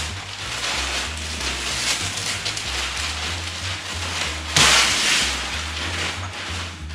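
Masking paper and tape being pulled off a car body, crinkling and crackling, with a louder tearing rip about four and a half seconds in. Background music with a bass line plays underneath.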